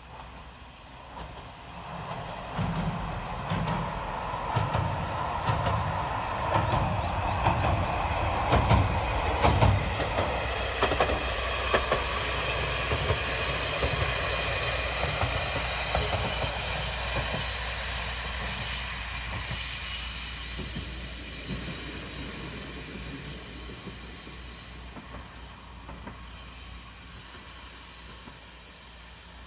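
A single-car diesel railcar passes, its engine and wheels thudding over the rail joints, rising to a peak about a third of the way in and then fading away. A thin high wheel squeal sounds in the middle as it goes by.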